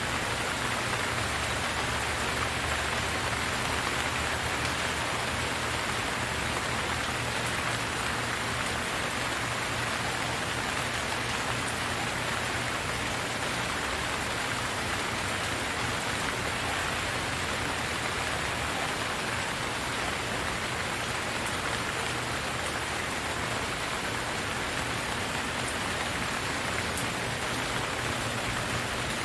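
Steady rain falling, an even, unbroken hiss of raindrops on surfaces.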